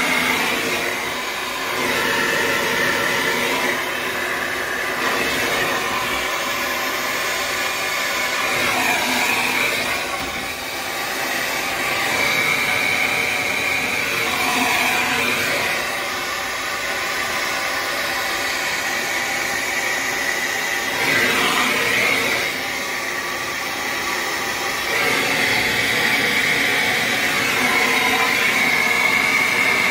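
Handheld gas torch flame hissing steadily while copper pipe joints are heated for soldering, its tone shifting now and then.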